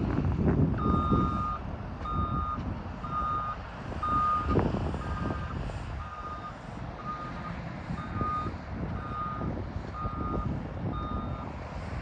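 JCB 419S wheel loader's reversing alarm beeping at a fixed pitch about once a second while the loader backs up, over the low running of its diesel engine.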